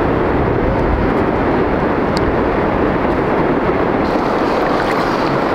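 Wind buffeting the microphone: a steady, loud low rumble and hiss.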